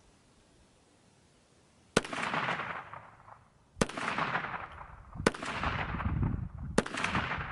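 KelTec PMR-30 .22 Magnum pistol fired four times, starting about two seconds in, one shot every one and a half to two seconds, each crack trailed by a fading echo.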